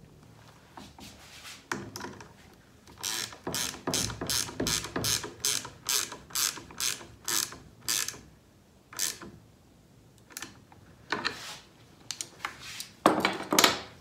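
Hand screwdriver turning a machine screw into the sawmill's segmented blade guard, clicking in a steady rhythm of about two strokes a second for several seconds. The strokes then come more slowly, ending in a louder burst of clatter near the end.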